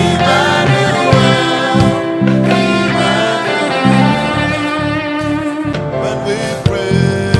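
Gospel worship music played by a band, with guitar and a steady bass line under wavering sung or lead melody lines.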